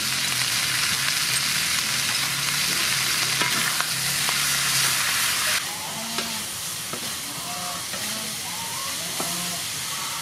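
Sliced pig ears sizzling as they fry in a metal wok, stirred with a wooden spatula that knocks lightly against the pan. The sizzle is loud at first, then drops suddenly to a quieter level about halfway through.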